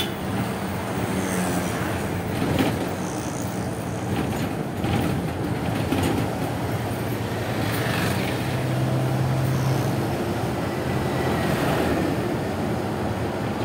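Engine and road noise of a moving vehicle heard from inside, a steady rumble with passing traffic; a low engine hum stands out for a couple of seconds past the middle.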